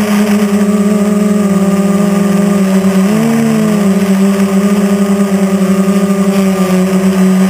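Quadcopter's four electric motors and propellers running in flight, heard close up from a camera on the frame: a steady buzzing hum. About three seconds in, the pitch briefly splits into one rising and one falling tone as the motors change speed, then settles again.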